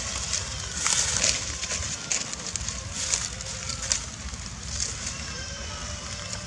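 Dry leaf litter crackling and rustling in short irregular bursts as monkeys shift about on it, over a low steady rumble.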